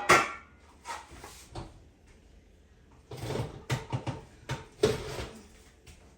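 Oven door and a baking pan being handled: a sharp clack at the start, a couple of lighter knocks, then a run of clattering knocks a few seconds later.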